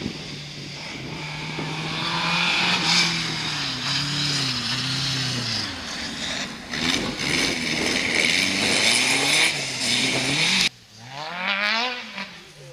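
Rally car engine at full load, revs rising and falling again and again as it changes gear. About ten and a half seconds in the sound cuts off abruptly, followed by a short burst of revving.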